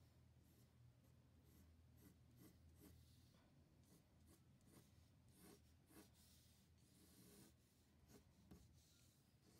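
Faint scratching of a mechanical pencil on paper: a run of quick, short sketching strokes.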